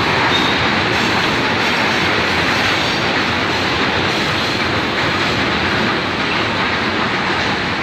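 Freight train of covered wagons rolling through a station: a steady, loud noise of wheels running on the rails.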